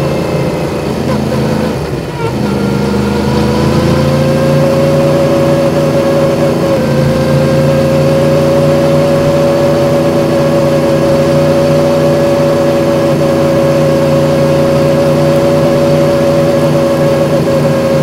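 Yamaha MT-10's crossplane inline-four engine under way. The engine note dips briefly about two seconds in, climbs over the next second or two, then holds at a steady pitch.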